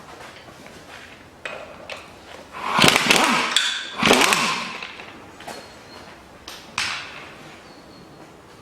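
Two short bursts of a power tool spinning bolts out of the thermostat housing, each winding down in pitch as it stops. Sharp metallic clinks of tools and bolts fall between and after the bursts.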